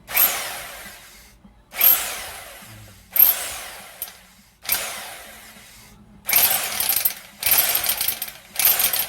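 Ingco rotary hammer drill running in hammer-only mode, its bit not turning but hammering, triggered in short bursts. The first four bursts start sharply and die away as the motor winds down; the last three, near the end, are held at a steady level for about a second each.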